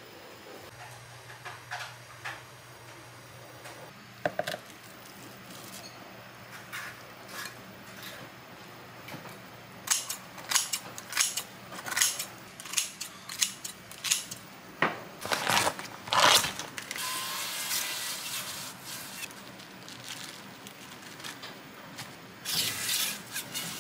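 Kitchen scissors snipping kimchi in a glass bowl: a quick run of sharp snips. Near the end, a spray can hisses over a breaded pork cutlet.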